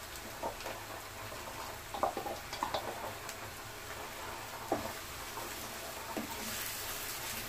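Chopped tomato being scraped into a pan of onion, green chilli and ginger-garlic paste frying in oil, then stirred: a soft steady sizzle with irregular knocks and scrapes of the spoon against the pan, the sizzle getting brighter near the end.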